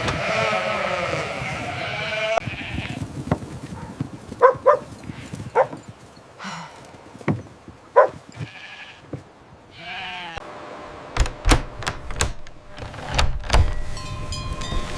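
Bleating from a flock of sheep or goats: several calls overlap for the first couple of seconds, then shorter scattered bleats and clicks follow. A few sharp knocks and steady bell-like ringing tones come in over the last few seconds.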